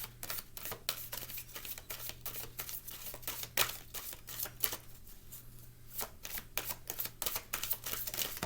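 A deck of oracle cards being shuffled by hand: many quick, irregular card flicks and taps.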